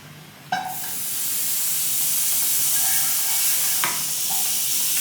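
Butter in a hot pan begins sizzling suddenly, with a knock, about half a second in, the sizzle building over the next second and then holding steady; another utensil knock comes near the end.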